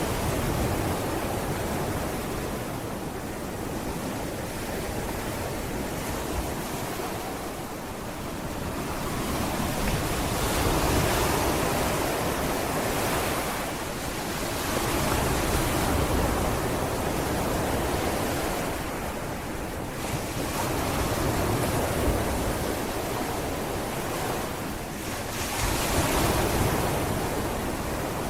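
Sea waves breaking and washing up on a sandy beach, the surf swelling and falling back every few seconds, with some wind buffeting the microphone.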